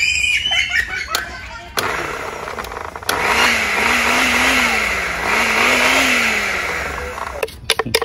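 Small electric blender pureeing a wet green seasoning mix. It starts with a low whir about two seconds in, then runs loud for about four seconds, its motor pitch rising and falling twice as the load shifts, and cuts off shortly before the end.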